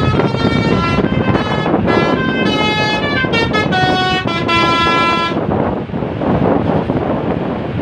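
Bus basuri (telolet) horn playing a melody of short stepped notes, which stops about five seconds in, leaving a steady rushing noise of wind and traffic.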